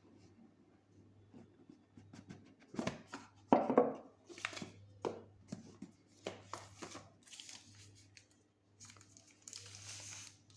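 Hands unboxing a smartphone: irregular rustling, crinkling and tearing of packaging with sharp clicks of handling, busiest a few seconds in, and a longer rustle near the end.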